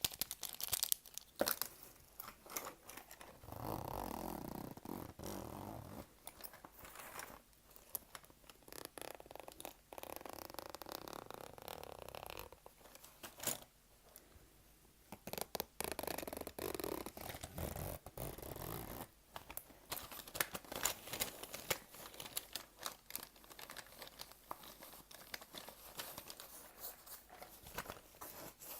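Close-miked ASMR trigger sounds: objects handled right at the microphone, giving irregular crackling and crinkling clicks with a few longer stretches of denser rustling.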